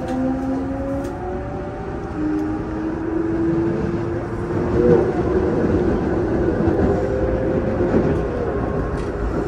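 5300-series electric train accelerating: its traction motor drive gives whining tones that climb in pitch over the first few seconds, over the steady rumble of the wheels on the rails.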